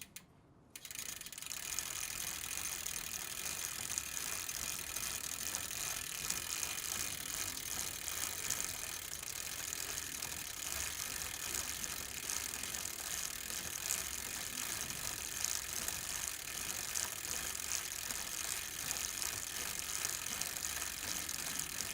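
Bicycle drivetrain turning as the pedals are worked: the chain and gears make a steady, fast clicking whir that sets in about a second in and keeps up without a break.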